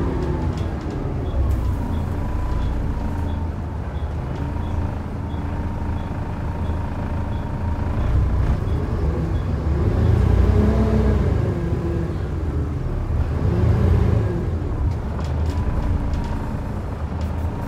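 Volvo B7TL double-decker bus heard from inside the saloon: its six-cylinder diesel running and pulling, with the engine note rising and falling twice past the middle as it changes gear. A steady whine runs through it, and a light ticking repeats about three times a second for the first seven seconds.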